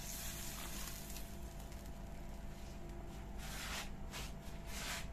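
Water poured from a plastic bottle into a steel pot of curry, tailing off about a second in. A faint steady hum follows, with a few short bursts of hiss near the end.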